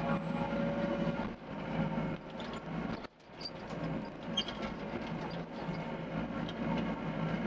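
Doosan DX55 mini excavator's diesel engine running steadily at working speed as the machine digs, with scattered light clicks and knocks; the sound drops away briefly about three seconds in, then returns.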